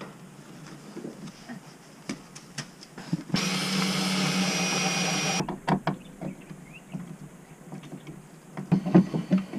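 Cordless drill-driver running for about two seconds, driving a screw into the van's wooden cabinet. It starts about three seconds in and stops abruptly, among scattered knocks and clicks of hand work on the woodwork.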